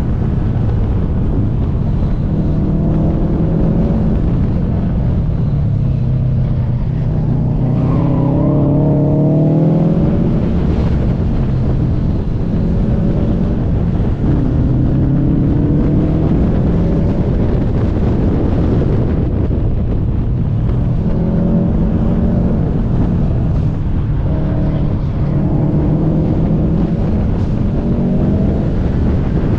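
Car engine driven hard on a winding road, its pitch repeatedly rising under acceleration and dropping off between corners, over a heavy wind and road rumble.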